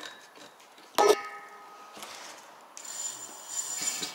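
A single metallic clank that rings briefly about a second in. Near three seconds a steady high whine sets in: the e-bike's 48V 500W hub motor spinning unloaded under throttle.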